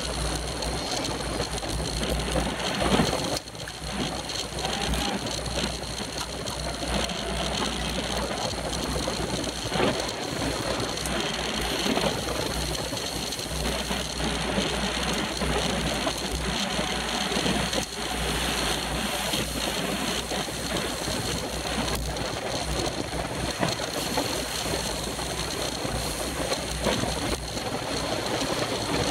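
Wind rushing over a bicycle-mounted camera's microphone, mixed with the rattle of the bike's chain and drivetrain and tyres on asphalt, riding fast in a pack of road bikes. One sharp knock about three seconds in.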